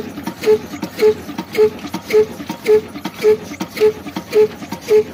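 Old Ruston Hornsby diesel engine running at slow speed: an even, heavy beat about twice a second, each beat with a brief ringing note.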